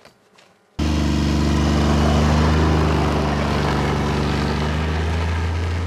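Faint footsteps crunching in snow, then under a second in a snowmobile engine cuts in suddenly and loud, running steadily at an even pitch as the machine drives past close by with two riders aboard.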